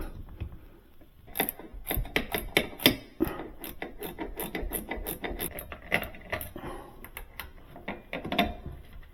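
Hand socket wrench turning the bolts of a refrigerator door hinge bracket: a quick run of metal clicks and scrapes, several a second, starting about a second and a half in.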